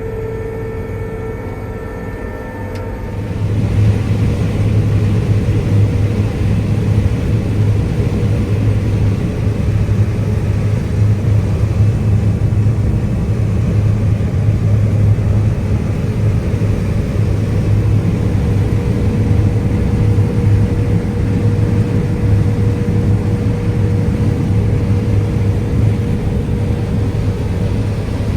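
A John Deere combine's engine running steadily with a low, even hum, growing louder about three seconds in and then holding steady.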